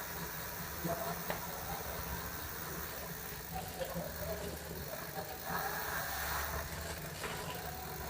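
Bicycle drivetrain of a 29er mountain bike: the rear freehub and cassette ratchet buzzing along with the chain as the rear wheel spins, with a couple of sharper clicks about a second in.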